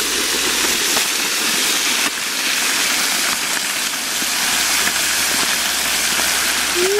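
Hot oil in a turkey fryer pot frying violently and sizzling around a whole turkey just lowered into it, a dense steady hiss. The violence comes from water draining off the turkey into the hot oil.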